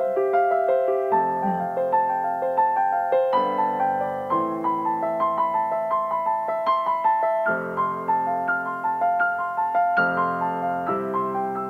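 Piano music: a steady run of single notes over held chords that change every couple of seconds.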